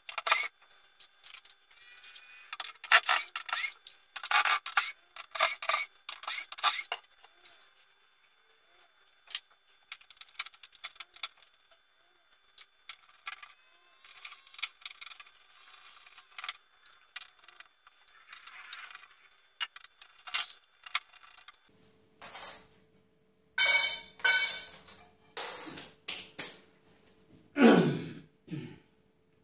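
Knocks, scrapes and light clinks of a particleboard wardrobe being dismantled by hand. They come in bursts: a busy run at the start, sparser handling through the middle, then louder knocks and a scrape that falls in pitch near the end.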